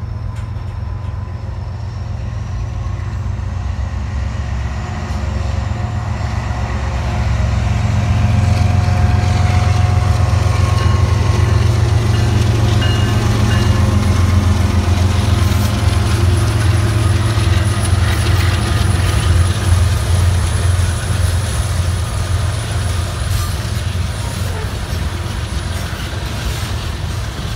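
Kansas City Southern diesel freight locomotives, a GE ES44AC leading an EMD SD70ACe, passing under power. Their steady low engine drone grows louder over the first several seconds, is loudest as the lead unit goes by, and eases near the end as loaded hopper cars roll past.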